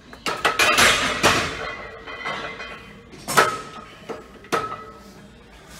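Loaded barbell and iron plates clanking: a cluster of sharp metallic clanks that ring on, then two more single clanks about three and a half and four and a half seconds in.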